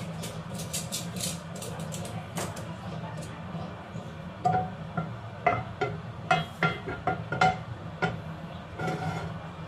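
Kitchenware clinking sharply, about eight ringing knocks from about halfway through to near the end. Under them runs a steady low hum, with light crackling in the first few seconds.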